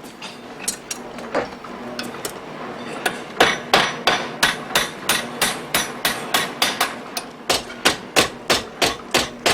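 Hammer striking a metal hinge as it is made by hand. A few light taps and clicks come first, then from about three seconds in a run of quick, even blows, about three a second.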